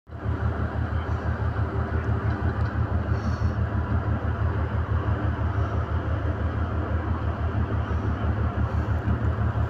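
Ship's engine running with a steady, rapidly pulsing low throb under a constant rushing hiss, heard from aboard the moving vessel.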